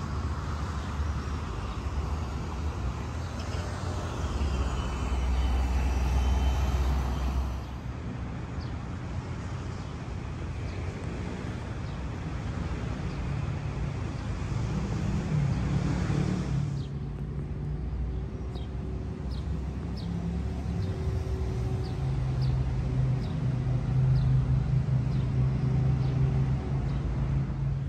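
City street traffic: cars and other motor vehicles running past, with a steady low engine rumble. The sound shifts in character twice, about a third of the way in and again past the middle. The later part carries faint short ticks.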